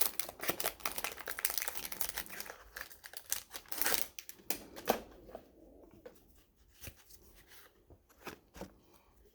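A sealed baseball card pack's wrapper being torn open and crinkled by hand, a dense crackling for the first few seconds. After that only a few faint ticks are left as the cards are handled.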